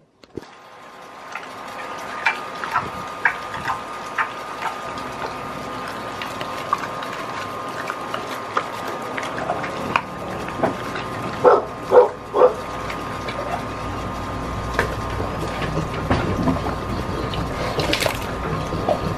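Dog licking and mouthing raw pork on a wooden cutting board: scattered wet smacking clicks, a quick cluster of louder ones a little past the middle, and a louder rustle near the end as it lifts the pork. A thin steady high tone runs underneath.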